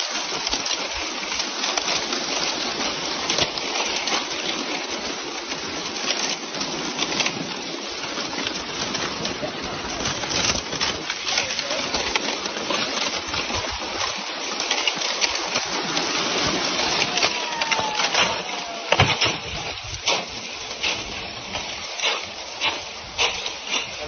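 Thin plates of broken lake ice jostling against one another: a continuous glassy tinkling and clinking, dense with sharp little clicks, and a short falling tone about three-quarters of the way through.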